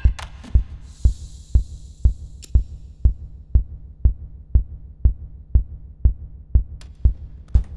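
Steady, heartbeat-like low thudding, about two beats a second, with a brief hiss around a second in and a few sharp clicks.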